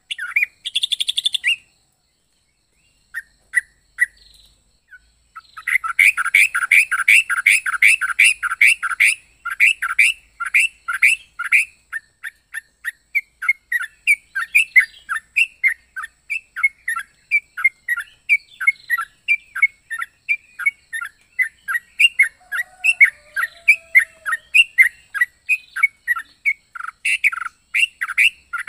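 A trucuk (yellow-vented bulbul) singing long runs of short, fast, evenly repeated chirps, with a near pause of a few seconds early on broken by single notes, then a dense rapid run before the chirps settle into a slightly slower steady series.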